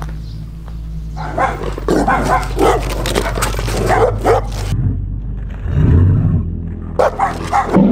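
Large dogs barking: a quick run of barks for a few seconds, then a single deeper bark, and a couple more near the end.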